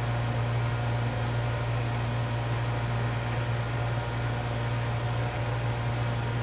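Steady low hum with an even hiss, unchanging throughout, from a running fan-like appliance or electrical hum.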